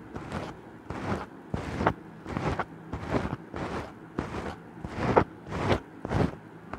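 Footsteps at a steady walking pace, about two steps a second.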